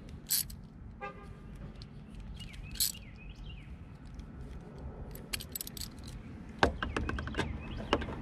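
Hand-tool work under a car hood: scattered metal and plastic clicks and taps, then a quick run of ratchet clicks near the end as a headlight housing screw is driven. A bird chirps a few times about three seconds in.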